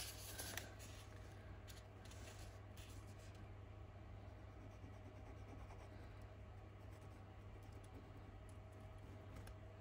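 Near silence: the faint scratching of a liquid-glue bottle's nozzle drawn along the edge of kraft paper, with a few faint ticks in the first few seconds, over a steady low hum.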